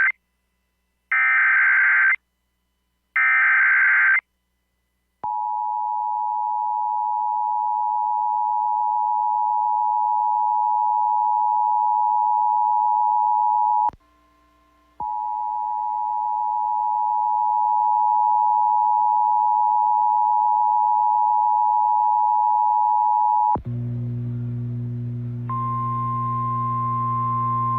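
Emergency Alert System tones on NOAA Weather Radio, the start of a tornado warning. Two rasping digital header bursts of about a second each come first. Then comes the two-tone attention signal, a steady dual-pitched tone held for about eighteen seconds with a one-second break partway. Near the end a low buzz comes in, followed by a single steady higher tone.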